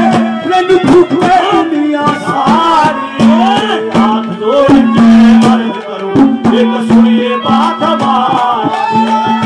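Live Haryanvi folk music: a steady held drone note under a bending melody line, with frequent hand-drum strokes.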